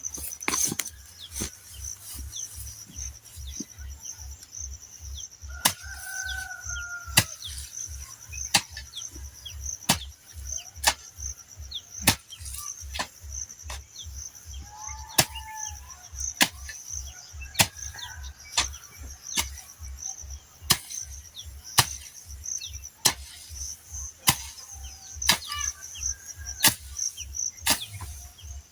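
A hand hoe chopping into farm soil during weeding, with a sharp strike roughly once a second. A steady high cricket trill runs underneath, with a few short bird calls.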